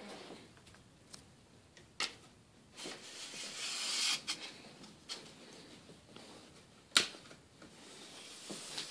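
Zeikos tripod's aluminium legs being handled and extended: a few sharp plastic clicks from the leg locks, the loudest about seven seconds in, and a rising rustling slide around three to four seconds in.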